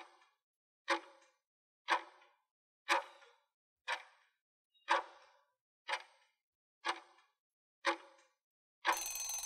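Countdown timer sound effect: a clock-like tick once a second, nine in all, each dying away quickly. Near the end, as the count runs out, a longer sound of just under a second follows.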